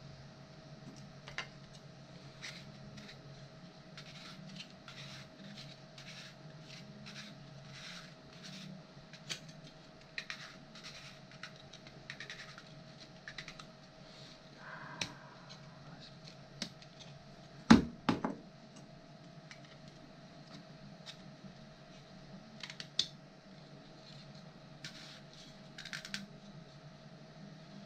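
Short, irregular scraping strokes of a 3D-printed plastic part being hand-finished (sanded or filed), with a sharp double knock about eighteen seconds in, over a steady low hum.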